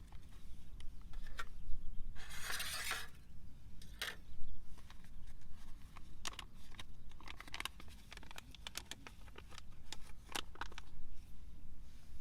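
Scattered small clicks and clinks of gear being handled, with a brief rustle about two seconds in, over a steady low rumble.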